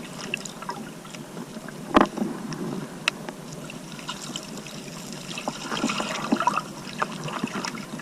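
Water splashing and trickling in many small, irregular splashes, with one louder splash or knock about two seconds in.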